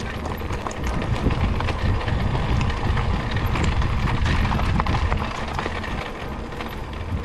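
Mountain bike descending a loose gravel and dirt singletrack: tyres crunching and clattering over small stones and the bike rattling, with a dense rumble underneath. It grows louder about a second in and eases off about two seconds before the end.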